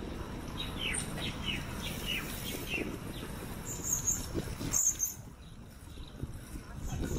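A small bird sings a quick run of about seven short falling chirps in the first three seconds, over the steady low rumble of wind and tyres from riding a bicycle. Two brief very high-pitched sounds follow about four and five seconds in.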